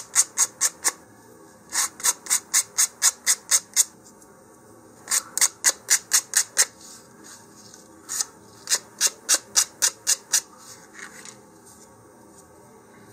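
Fine 220-grit sandpaper rubbed in short quick strokes along the paper-covered edge of a balsa model-rocket fin, about four strokes a second in four runs with short pauses between, a last few faint strokes near the end.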